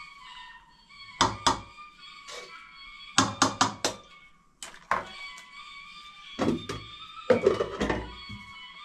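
Dull thuds and knocks in irregular clusters, several in quick succession, over background music with steady held tones.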